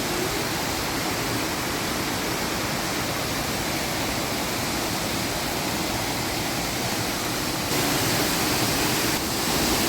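Mankayam waterfall's water rushing and splashing in a steady, dense roar, jumping louder abruptly near the end.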